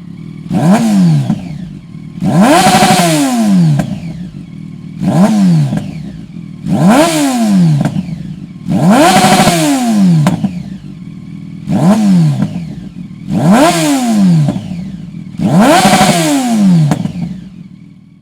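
Yamaha FZ8 Fazer's inline-four engine revved through a Dominator aftermarket exhaust silencer: about eight sharp throttle blips, roughly one every two seconds, each climbing quickly in pitch and then falling back toward idle.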